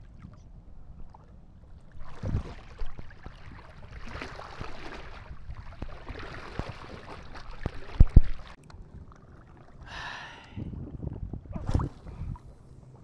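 Water sloshing and splashing in uneven surges, with a few dull knocks, the loudest about eight seconds in. A short pitched call-like sound comes around ten seconds in.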